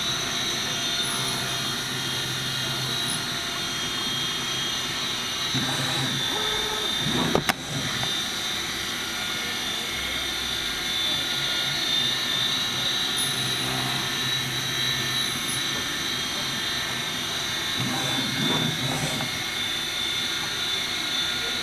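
CNC milling spindle running with a steady high whine as the cutter machines bone nut blanks under a hissing coolant spray. A sharp click about seven and a half seconds in.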